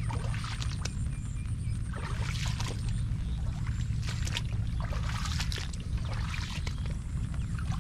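Monsoon rain with splashy footsteps on a wet road, recurring every second or so, over a steady low rumble.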